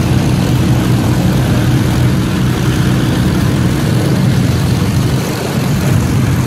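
Vintage warbird piston aircraft engines idling on the ground, a steady low drone with no change in pitch.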